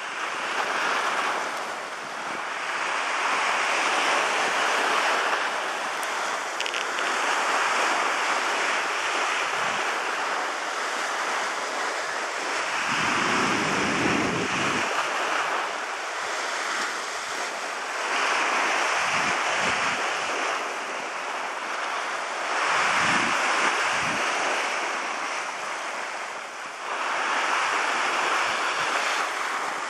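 Sea surf: waves breaking and washing in, swelling and fading every few seconds. A few low rumbles of wind buffet the microphone.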